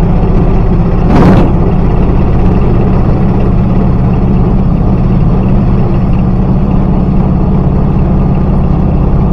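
Auto rickshaw's engine running steadily as it drives along, heard from inside the open cabin, with a brief rushing burst about a second in.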